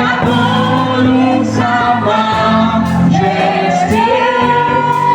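Music: a choir singing, with long held notes, the longest near the end.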